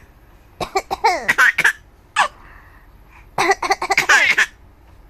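Coughing and a seven-month-old baby laughing in response, in two bouts about a second long each, with a single short burst between them.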